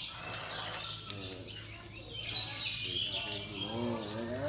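Lovebirds chirping in a sharp cluster about two seconds in, over the hiss and splash of water from a garden hose as the birds are sprayed for a bath.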